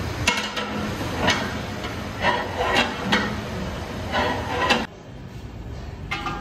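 Metal utensils knocking against large hammered aluminium biryani pots: about seven sharp clanks with a ringing tail, some close together. Under them runs the low steady roar of the gas burners heating the pots. The clanking stops abruptly about five seconds in, with one more knock near the end.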